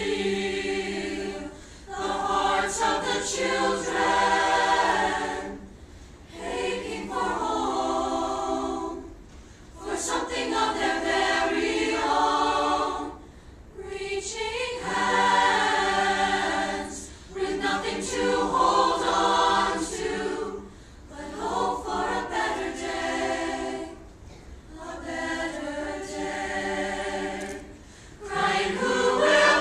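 Mixed choir of teenage voices singing a cappella in unison and harmony, in short phrases of about two seconds each with brief breath pauses between them.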